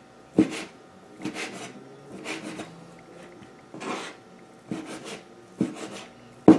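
Chef's knife chopping cooked chicken breast on a sheet of paper over a wooden table: sharp knocks of the blade about once a second, with short scraping sounds between them.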